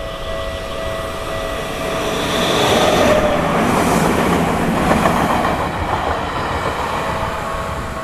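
Tokyu Tamagawa Line electric commuter train running past a level crossing, swelling to its loudest about three to five seconds in, then fading. Under it the crossing's warning bell rings steadily, clear again as the train moves away.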